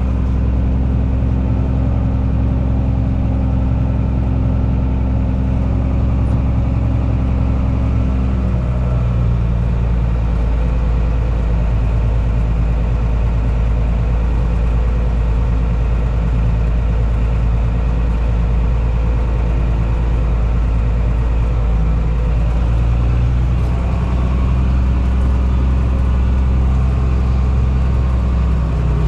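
Fendt Favorit 818 tractor engine running steadily, heard with the drive noise of the tractor; its note changes slightly about eight seconds in.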